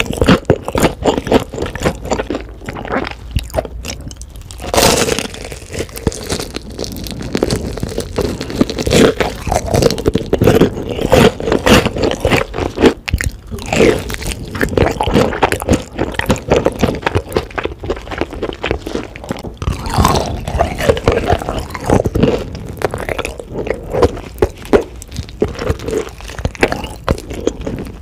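Close-miked crunching and chewing of crispy battered fried chicken: bites crackle through the crust, then the meat is chewed. There are a few louder crunches, the first about five seconds in.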